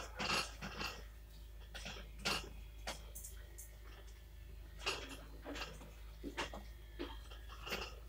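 Spoon scraping and knocking against a metal pan as flour and raisins are stirred while roasting in oil, in irregular clicks and scrapes, a few every second or two.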